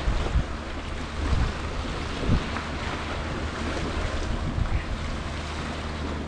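Wind buffeting the microphone over the steady wash of sea waves, with several stronger gusts in the first few seconds and a low steady hum underneath.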